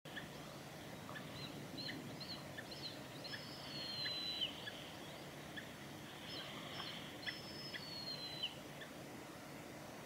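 Juvenile mountain hawk-eagle calling: a run of short, high whistled notes that ends in a long, thin, slightly falling whistle, given twice, the second series starting a little after the middle.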